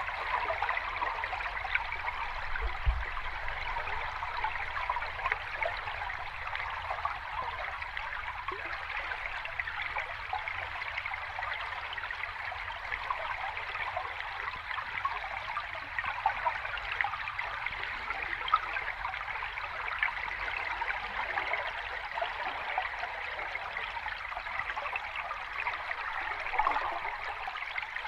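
Water running steadily over rocks in a small cascade, with a continuous rushing splash and fine trickling.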